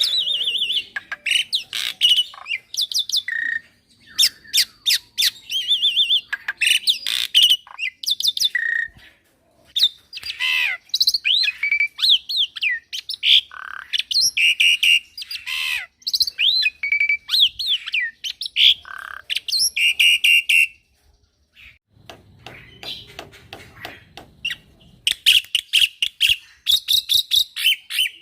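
Young black-winged myna (jalak putih) singing a long, varied song full of mimicked fill-in calls: harsh squawks, rapid clicking notes and quick rising and falling whistles, broken by short pauses. Near the end it delivers a run of fast repeated notes.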